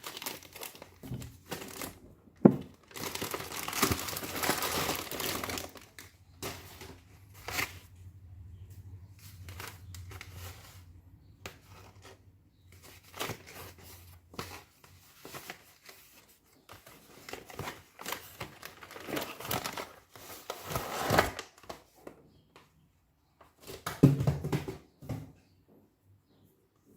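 Parcel packaging being handled and unwrapped: crinkling and tearing in irregular bursts, with a few sharp knocks as it is handled.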